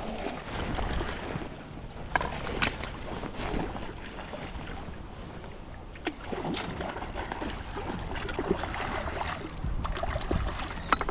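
Wind buffeting the microphone over a steady rush of river water, with scattered clicks and knocks of handling throughout.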